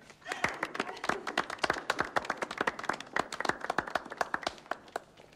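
A small group clapping, a dense patter of hand claps that thins to a few scattered claps and dies away near the end.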